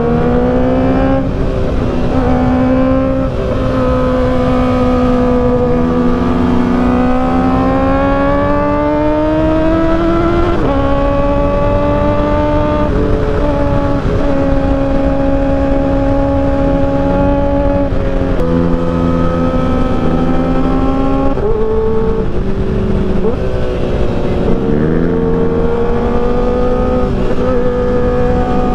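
Kawasaki ZX-4RR's 399 cc inline-four engine running under way. Its note slowly rises and falls with the throttle and steps abruptly in pitch several times at gear changes.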